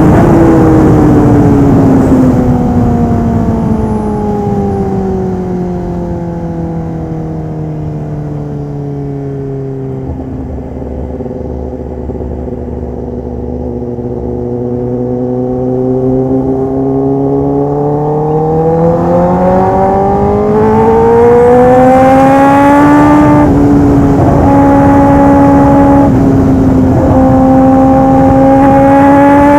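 Kawasaki ZX-10R inline-four with a full aftermarket exhaust system. The engine note falls steadily as the revs drop and runs low for several seconds, then rises again under acceleration, with short breaks near the end that sound like gear changes.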